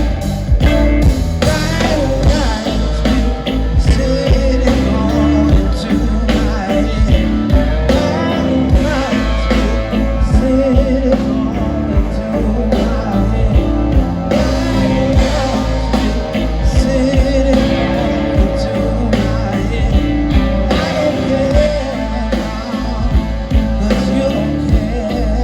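Live blues-rock band playing a slow blues: electric guitar and drum beat, with a man singing over it.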